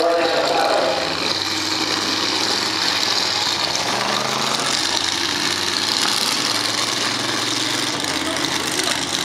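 Off-road truck engines running at a distance, a steady low drone.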